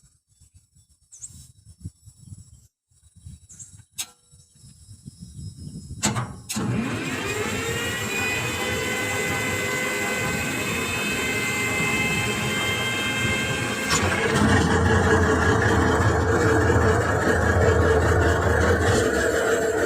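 A construction machine's engine starts about six seconds in, its pitch rising briefly as it catches, then runs steadily with a high whine over it. Around two-thirds of the way through it gets louder and deeper, as if under more throttle or load. The first seconds before it starts are quiet apart from a few faint clicks.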